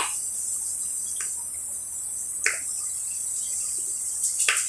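A person eating: a few short wet mouth smacks and sucking clicks, spaced a second or more apart, over a steady high hiss.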